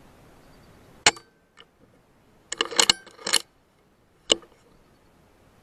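FX Impact M3 MkII PCP air rifle firing: a sharp shot about a second in, a quick run of sharp clicks and clacks around the middle, and another sharp shot at about four seconds.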